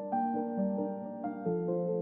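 Slow background piano music, a melody of held notes changing every half second or so.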